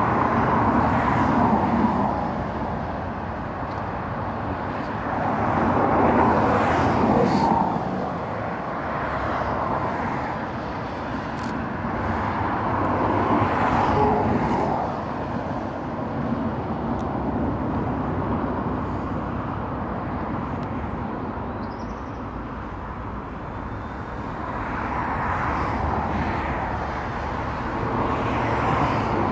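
Road traffic passing, a steady rush that swells and fades several times as vehicles go by.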